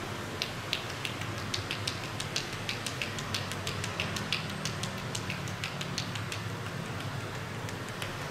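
Massage percussion: quick, sharp slaps and taps of the masseuse's hands on the client's bare skin, about three to four a second in an uneven rhythm, over a steady low street hum.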